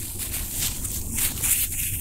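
Gold foil flakes crinkling and crackling as fingers press them into clear slime: a dense run of small crackles, a little louder in the second half.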